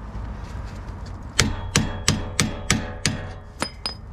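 Hammer blows on a truck's steel exhaust pipe: six quick strikes starting a little over a second in, each leaving a short metallic ring, then two lighter taps.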